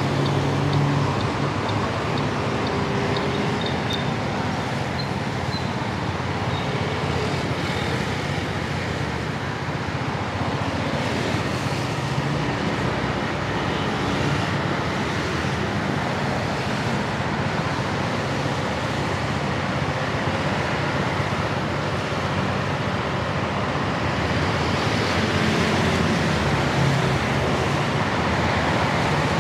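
City street traffic heard from a scooter: a steady noise of cars and motor scooters on wet roads, with engine hum swelling in the first second and again near the end.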